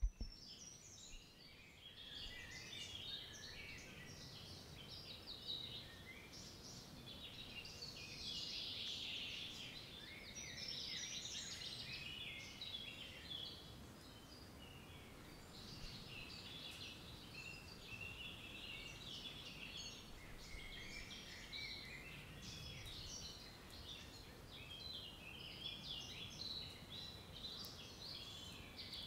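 Several small birds chirping continuously in a dense, overlapping chorus of short high chirps, with a faint low rumble of outdoor background underneath.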